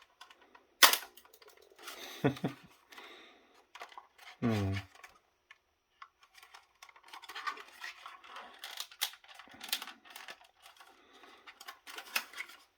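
Scraping and small clicks of a tool working at a snap-together plastic housing, with one sharp click about a second in and a busier run of scraping in the second half.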